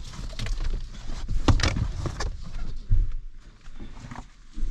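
Rustling and several sharp knocks of a harness-mounted action camera as a dog moves about on a car's back seat.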